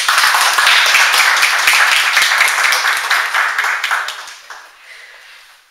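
Audience applauding, a dense patter of many hands clapping, steady for about four seconds and then dying away.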